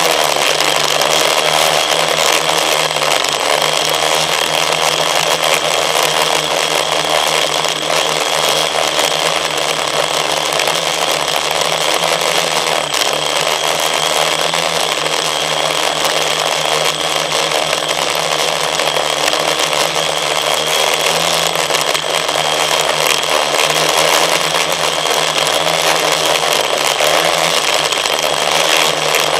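FPV drone's motors and propellers running with a steady, loud buzzing whine, heard from the camera on board; the pitch wavers a little with the throttle.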